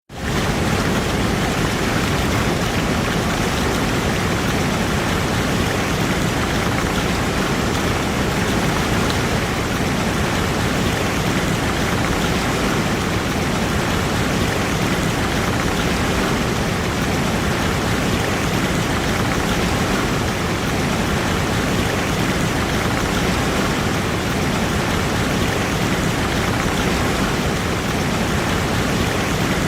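Waterfall: a steady, unbroken rush of falling water that fades in at the very start.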